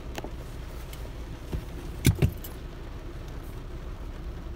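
Car running at low speed, heard from inside the cabin as a steady low rumble. Two sharp clicks a fraction of a second apart come about two seconds in.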